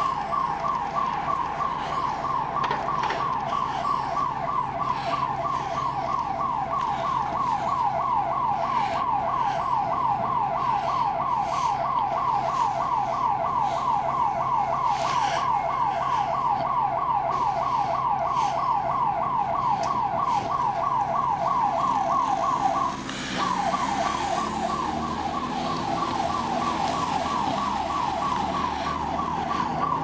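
A store's electronic security alarm siren sounding a fast, repeating rising wail. It cuts out briefly about 23 seconds in and starts again. The alarm keeps turning off and on, which sounds like a malfunction.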